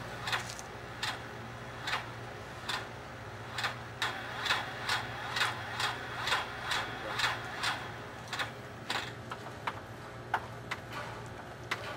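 Crack-injection pump clicking with each stroke as it pushes product through the hose into a foundation crack: sharp clicks, evenly spaced at about two to three a second through the middle and more uneven at the start and end, over a low steady hum.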